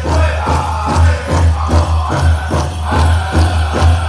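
Powwow drum group singing in chant over a steady, even drumbeat, with dancers' bells jingling on top.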